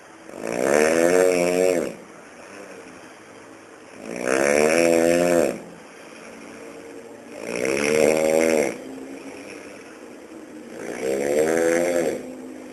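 Loud snoring: four long snores about three and a half seconds apart, each lasting about a second and a half with a wavering, rattling pitch, and quieter breathing between them.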